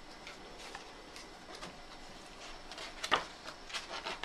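Pages of a large hardback book being turned by hand: faint paper rustles, the loudest about three seconds in and a few smaller ones near the end.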